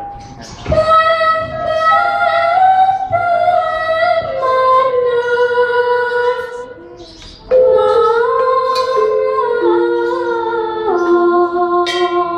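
A female voice sings a Javanese gamelan vocal line unaccompanied. It comes in two long phrases of held, sliding notes that step downward in pitch, with a breath pause about seven seconds in.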